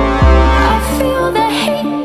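Electronic music: synth chords over a deep, sliding bass note that starts about a quarter second in and fades away near the end, with a melody line above.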